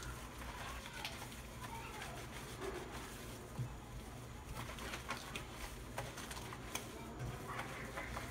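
Wet, foamy fleece cloth-diaper insert being rubbed and squeezed by hand with shampoo: soft squelching with many small sharp clicks, over a low steady hum.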